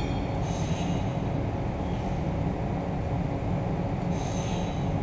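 Steady low drone of shop background noise, with two short, faint metallic jingles as small steel clamp parts are handled, about half a second in and about four seconds in.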